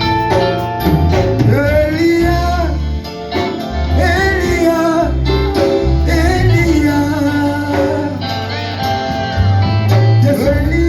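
Lingala gospel song: a singer's voice, held and wavering on the long notes, over guitar and bass.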